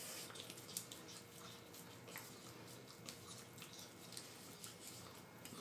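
Small dog licking ice cream from a small cup held in a hand: faint, irregular wet licking clicks.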